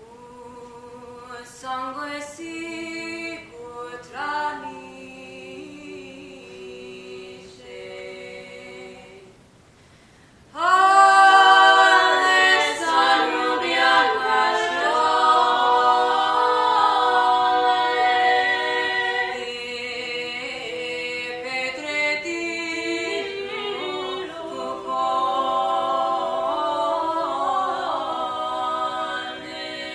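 Small ensemble of women's and men's voices singing a cappella in close multi-part harmony. A softer phrase comes first, then a brief pause, and about ten seconds in all the voices come in loudly and hold sustained chords.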